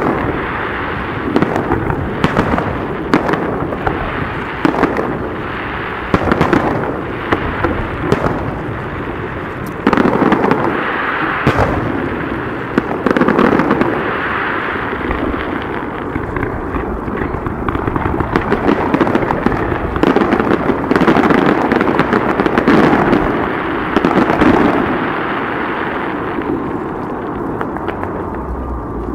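Aerial fireworks shells bursting one after another: sharp bangs every few seconds over a continuous crackling, thinning out near the end.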